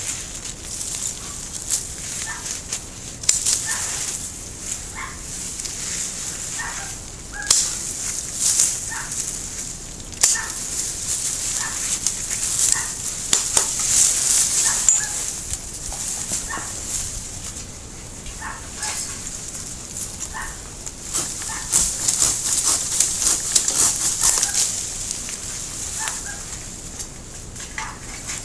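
Hand pruning shears snipping Japanese maple twigs, a sharp click every few seconds, over a steady rustle of leaves and branches being pushed through and handled. Short high chirps recur throughout.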